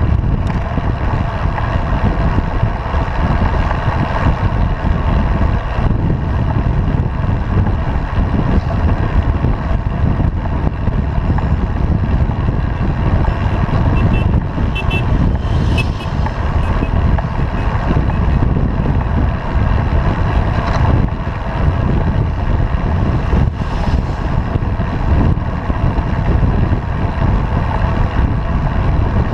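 Steady wind buffeting on the microphone of a camera mounted on a moving road bike, mixed with tyre and road noise.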